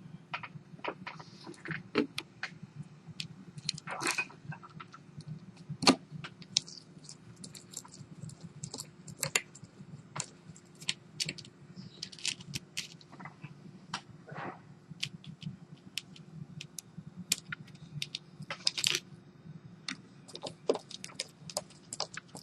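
Irregular small clicks and taps of a screwdriver, tiny screws and the plastic back cover of a Samsung Galaxy S3 being handled during reassembly, over a low steady hum.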